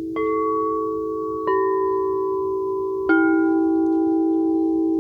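Singing bowl struck three times, about a second and a half apart. Each strike leaves a long, steady ringing tone that layers over the ones still sounding.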